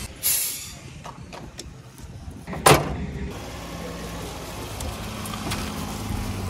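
A short burst of gas hiss as the CNG filling nozzle is released, then a single loud slam about two and a half seconds in as the Hyundai Eon's bonnet is shut, followed by a low steady hum.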